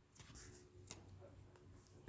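Near silence, with a faint rustle and one small click as the handmade paper notebook is opened and handled.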